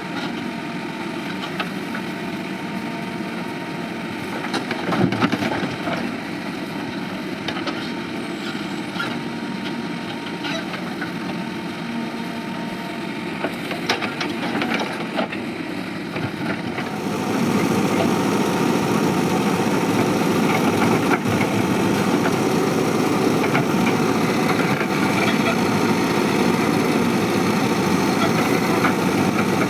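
Diesel engine of a Mahindra backhoe loader running steadily, with a few sharp clanks about five seconds in and again around fourteen seconds. A little past halfway the engine gets louder and stays louder, as it is worked harder.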